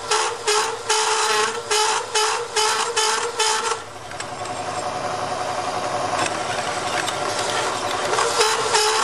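Hole saw driven by a milling machine cutting through a thick metal plate: a pulsing cutting chatter about three times a second over a steady whine. About four seconds in it turns to a smoother, steadier grind, and the pulsing returns near the end.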